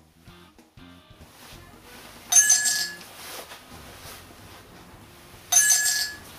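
Coin-clink sound effect played twice from a palm-concealed electronic sound device, a bright metallic ring of about half a second each time, the two about three seconds apart.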